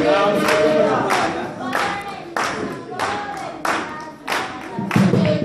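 Group singing a Venda malende song over steady hand-clapping, about one and a half claps a second.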